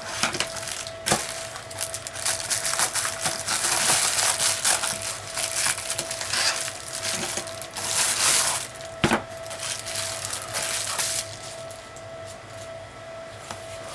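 Packaging being opened by hand: irregular crinkling, rustling and tearing of wrapping, with a sharp click or knock about a second in and another about nine seconds in, quieter handling near the end.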